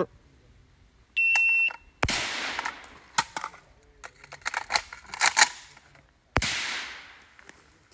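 Electronic shot-timer start beep, a single steady high tone lasting about half a second, then less than a second later the first shot from a suppressed Zastava M92 7.62×39 short AK, trailing off. Several more sharp cracks follow over the next few seconds, and a last loud shot near the end fades out slowly.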